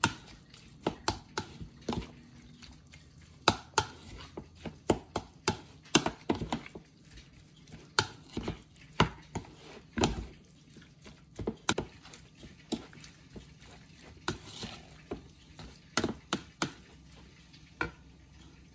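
Metal spoon stirring and folding chopped lobster meat, grated coconut and green onion in a bowl. The spoon knocks against the bowl in irregular sharp clicks, about one to three a second.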